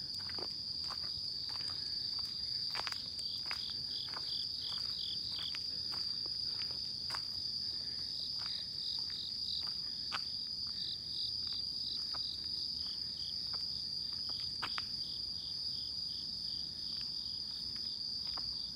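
Night insects calling: one continuous high, shrill trill, with runs of quick pulsed chirps just below it that come and go, and occasional soft clicks.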